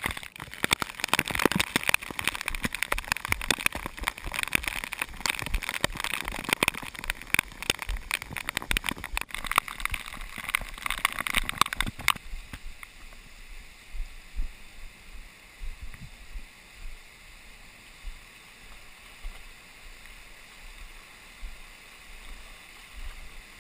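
Muddy flash-flood water rushing through a slot canyon, heard through a handheld camera's microphone. For about the first twelve seconds it is loud and crackly with many knocks, then it drops suddenly to a quieter, even rush of water with occasional thumps.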